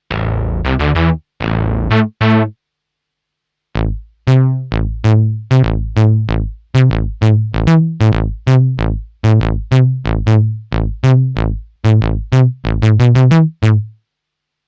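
Modal Cobalt 8 synthesizer playing a plucky preset: short, bass-heavy notes that start sharply and die away quickly. A few notes come first, then about a second's pause, then a steady run of notes about two a second, quickening near the end before stopping.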